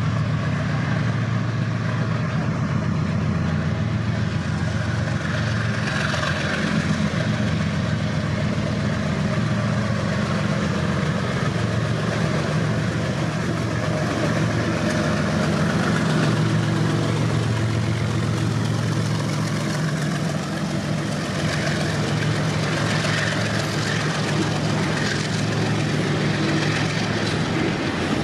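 Pakistan Railways GEU40 diesel-electric locomotive 9026 running as it slowly approaches and passes, hauling a container freight train. Its steady low engine drone fades about two-thirds of the way through as it goes by, leaving the wagons rolling over the rail joints.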